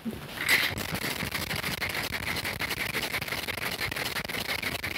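Ice rattling in a metal cocktail shaker shaken vigorously, a rapid even clatter throughout. The shaking chills the blackberry gin sour and crushes the fresh blackberries inside.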